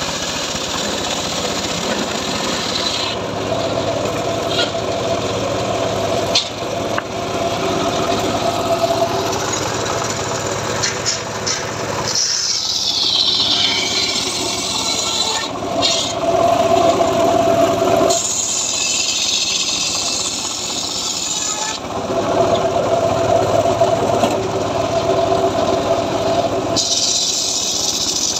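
Large circular saw blade of a homemade sliding-table log saw running and cutting through hardwood logs, a steady mechanical running tone with rasping wood noise. The sound changes abruptly several times.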